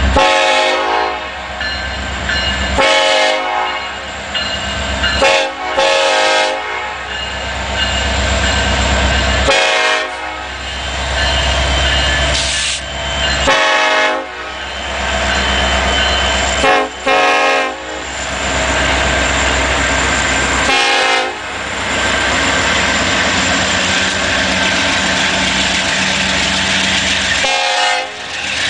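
Union Pacific SD70ACe locomotive's Nathan K5LA five-chime air horn sounded in a horn show: about eight blasts of varying length, some short and some held for a second or two, over the low rumble of the diesel engine. Between and after the blasts the train rolls by with wheels clicking over the rail joints, the rushing of the passing cars taking over near the end.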